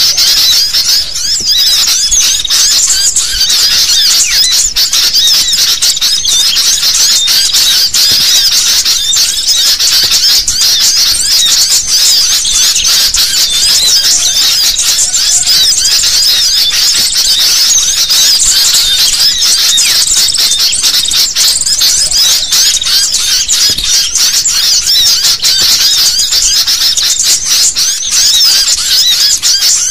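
A dense chorus of many sooty-headed bulbuls chattering and calling at once. It is a loud, unbroken tangle of high chirps with no pause.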